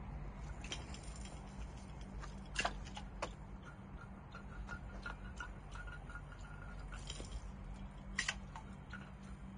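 Spinning fishing reel cranked during a slow jerkbait retrieve: irregular light ticking and clicking over a faint low hum, with a sharper click about two and a half seconds in and another near the end.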